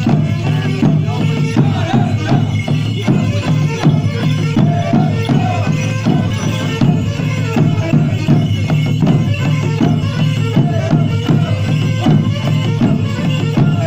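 Romanian folk music: dubă frame drums beaten in a quick, steady beat under a melody over a steady low drone.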